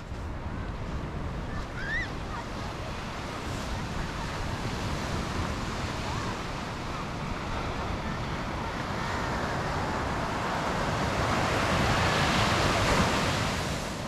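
Sea surf breaking and washing up a sandy beach, a steady wash that swells louder toward the end. Wind buffets the microphone throughout.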